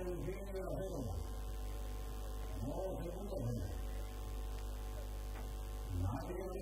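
Steady electrical mains hum. About every three seconds a pitched sound swoops up and back down in pitch.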